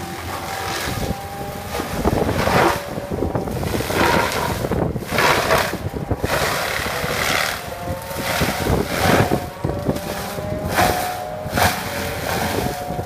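Hydraulic drum grinder on a Caterpillar 320E excavator chewing through standing trees and brush, over the excavator's running diesel engine. A steady engine and hydraulic whine is broken by loud, harsh grinding surges roughly every one to two seconds as the drum bites into the wood.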